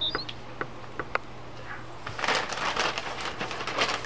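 A few light clicks, then, about halfway through, a newspaper rustling and crackling as it is opened out.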